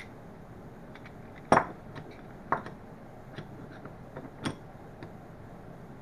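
Small steel parts of a Jacobs 34-06 drill chuck clinking and knocking together while being fitted during reassembly. The sharpest clink comes about a second and a half in, with two more near two and a half and four and a half seconds and light ticks in between.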